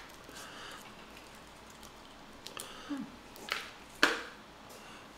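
Boiled crawfish being cracked and peeled by hand: small shell clicks and wet squishing, with two louder sharp snaps close together a little past the middle.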